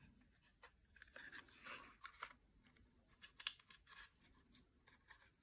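Near silence with faint handling noises: scattered light clicks and rustles of hands working the plastic frame and tension cord of an Electric Eel Wheel Nano 2 spinning wheel, with a sharper click about three and a half seconds in.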